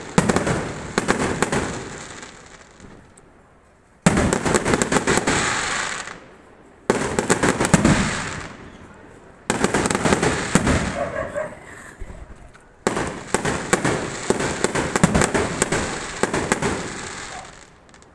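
Fireworks and firecrackers going off in five bursts of rapid crackling pops. Each burst starts abruptly and fades out over a few seconds.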